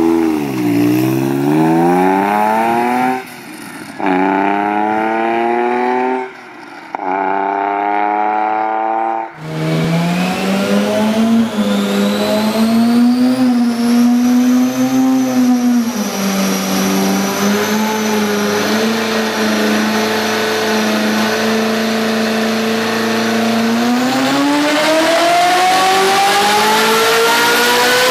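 Ferrari engines under hard acceleration. One pulls through three gears, its pitch climbing and then dropping at each upshift. Then another holds a steady, slightly wavering note before climbing again near the end.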